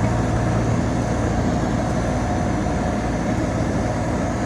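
Steady drone of a Volkswagen Constellation 19.320 truck cruising on the highway, heard from inside the cab: the engine runs at an even speed under road and wind noise.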